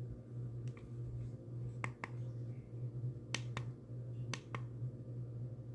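Buttons on a DIGITEN plug-in digital thermostat being pressed, sharp plastic clicks that mostly come in quick press-and-release pairs, three pairs and a lighter single click, over a steady low hum.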